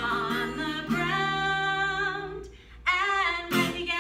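A woman singing a children's song with long held notes, accompanied by an acoustic guitar, with a strum about three and a half seconds in.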